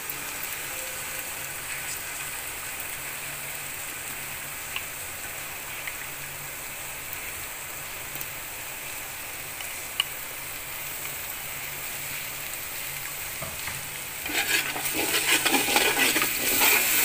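Onion-and-spice masala sizzling steadily in hot oil in a steel pot, with a few light clicks. About fourteen seconds in, the sizzling grows louder as whisked yogurt is stirred into it with a metal spoon.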